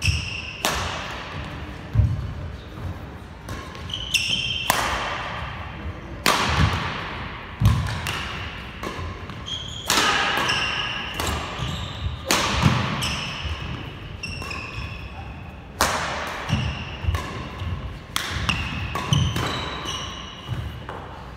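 Badminton rackets smacking the shuttlecock back and forth in a rally, sharp hits every second or two that echo in a large hall. Short high squeaks of court shoes and thuds of footwork come in between the hits.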